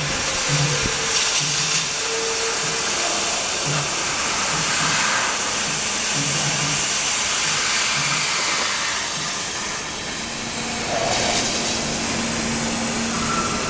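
Nd:YAG laser cutting machine cutting steel sheet: a steady hiss from the gas jet at the cutting head, with a low hum that comes and goes.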